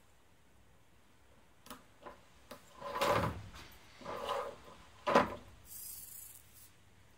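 Robot parts being handled on a wooden tabletop: a few light clicks, two scraping slides around three and four seconds in, and a sharp knock just after five seconds, the loudest sound. A brief high hissing rub follows.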